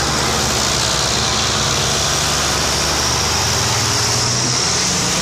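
Diesel tractor engines working hard under load, hauling a heavily loaded sugarcane trolley: a steady loud engine hum that rises slightly in pitch about three and a half seconds in, over a hiss.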